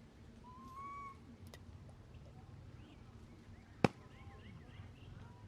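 Faint bird chirps over a low steady hum, with a brief whistle-like call about a second in and a single sharp click just under four seconds in.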